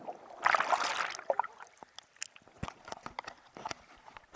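Sea water splashing once about half a second in, as a wave washes in, followed by scattered small clicks and gurgles that fade away.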